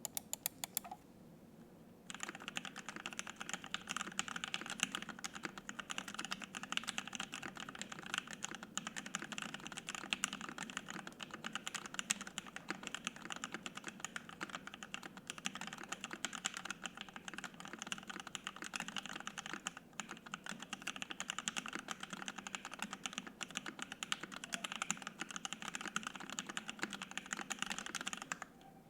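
Fast, continuous typing on a custom mechanical keyboard with lubed and filmed Lavender linear switches, an FR-4 plate and PBT keycaps. A few keystrokes start it, there is a short pause, and then the typing runs on steadily.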